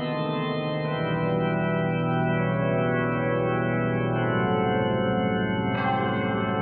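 Organ music playing slow, sustained chords, the chord changing about a second in and again about four seconds in, with a brighter stroke entering near the end.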